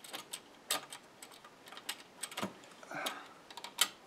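Irregular light metallic clicks and taps as a loosened spiked T-nut and a small tool are handled against the wooden underside of a pinball playfield. A brief scrape comes about three seconds in, and the loudest click comes near the end.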